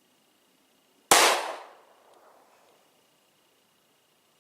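A single pistol shot about a second in, sharp and loud, with its report dying away over about half a second.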